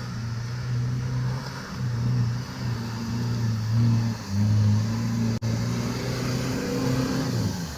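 Off-road vehicle's engine working under load, its revs rising and falling in repeated surges, then dropping off near the end.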